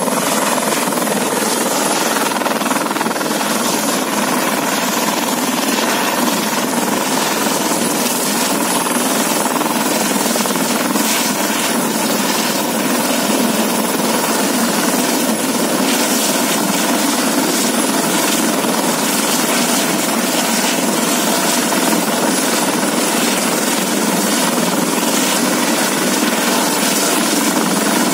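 Eurocopter EC130 B4 helicopter running at close range, its turboshaft engine, main rotor and Fenestron tail rotor making a loud, steady noise with a thin high whine held throughout.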